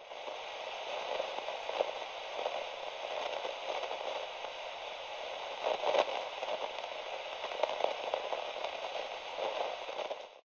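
Television-style static: a steady hiss and crackle with scattered pops, cutting off suddenly near the end.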